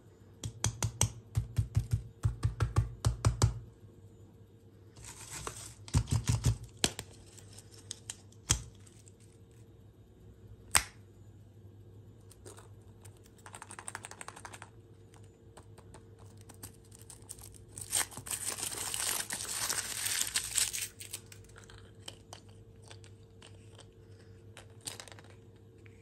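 Quick runs of sharp tapping clicks on the candy eggs' packaging, then foil crinkling and tearing as the wrapper is peeled off a chocolate surprise egg, loudest a little past the middle.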